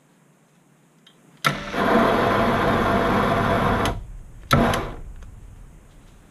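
Proxxon PD 250/e mini lathe switched on with a click, its motor and gear train running steadily for about two and a half seconds during a single-point threading pass in steel, then switched off. A second click about half a second later brings a short burst of running that winds down.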